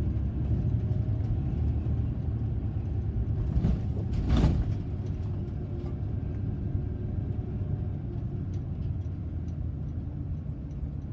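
Car driving along a road: a steady low engine and road rumble, with a brief louder whoosh about four seconds in.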